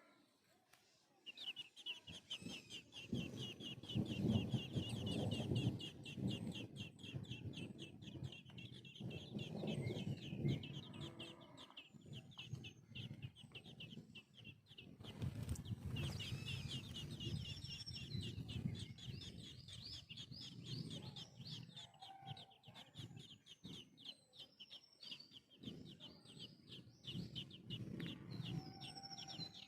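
Baby birds begging while a parent bird feeds them: a rapid run of short, high chirps, many a second, with louder low noise underneath in spells.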